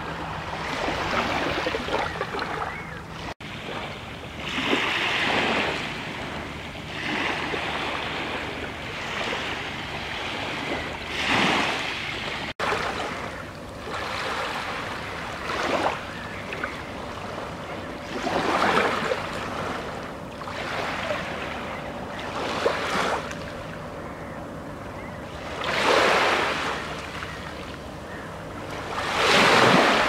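Small sea waves breaking and washing up a sand-and-pebble beach, a fresh surge of surf every few seconds.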